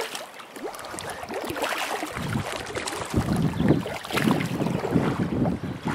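Wind buffeting the microphone in irregular gusts, getting heavier about two seconds in, over water noise and light splashing as a hooked trout is brought in.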